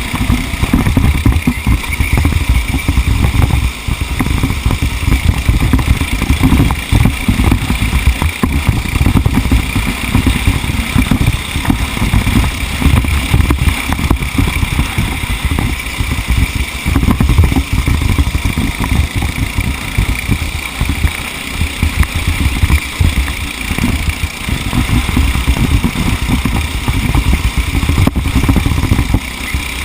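A TAG-class racing kart's engine running continuously at race pace, loud, with a dense, rapidly fluctuating low rumble.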